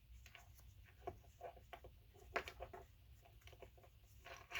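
Faint, scattered taps and rustles of leather pieces being handled and fitted one inside the other, with one slightly sharper tap about two and a half seconds in.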